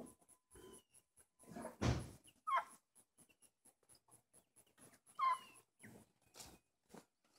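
A small dog whining, two short bending whines about two and a half and five seconds in, with a loud thump just before the first whine.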